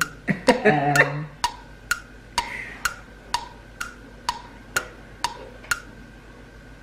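Steady tapping or ticking, about two sharp ticks a second, each with a brief ringing tone, about a dozen in all before it stops near the end.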